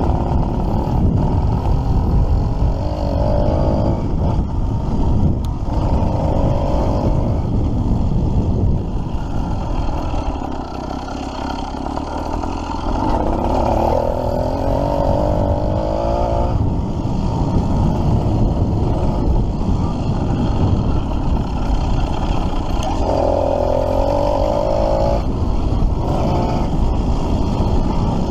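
Small engine of a kit-built motorized bicycle running under way, with a heavy rumble of wind and road noise throughout. The engine note rises and falls several times and eases off briefly about ten seconds in.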